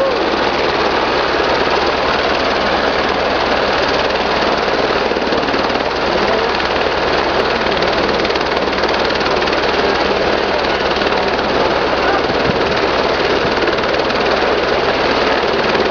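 Helicopter sitting on the snow with its rotor turning: a loud, steady turbine-and-rotor noise over a fast, even low beat from the blades.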